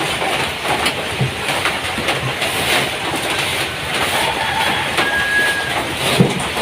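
Rain falling on a zinc roof: a steady, dense patter.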